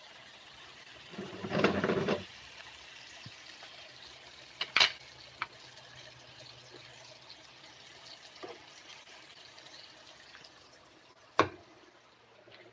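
Steady sizzle of chicken intestine frying in hot oil in a pan, with a louder noisy burst about a second and a half in and a few sharp clicks.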